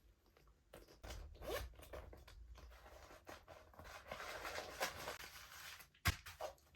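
Zipper on a small handbag being pulled open and shut in several rasping runs, with one sharp click near the end.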